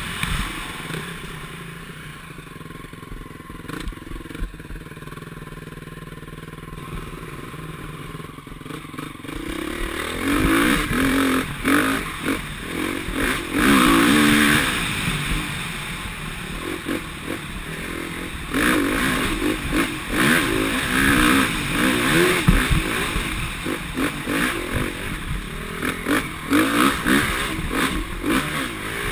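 KTM SX-F 350 four-stroke single-cylinder dirt bike engine running. It is quieter for the first several seconds, then revs up and down hard from about ten seconds in, with rattling knocks from the bike over the rough trail.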